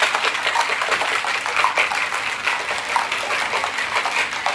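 Ice cubes rattling fast and hard inside a metal cobbler-style cocktail shaker being shaken vigorously to mix and chill the drink.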